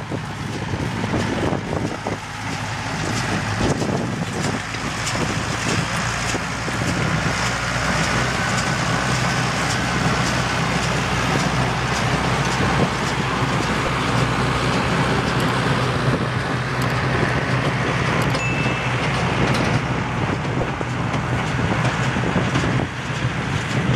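Engine of an old car running steadily at low revs, a constant low hum.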